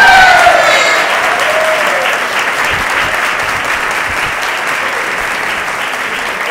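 Audience applauding, loudest at the start and slowly dying down, with a few voices over the clapping in the first second.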